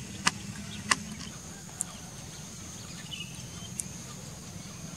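Quiet outdoor ambience with a faint steady high-pitched tone over low background noise, two sharp clicks in the first second, and a short bird chirp about three seconds in.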